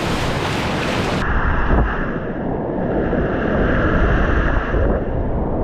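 Whitewater rushing and splashing over a chest-mounted camera on a kayaker's PFD. About a second in, the high end cuts off abruptly and the sound turns muffled and rumbling, as water covers the microphone.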